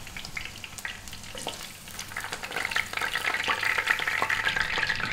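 Oil sizzling and crackling in a frying pan as sesame-coated tuna fingers shallow-fry, growing louder about two seconds in.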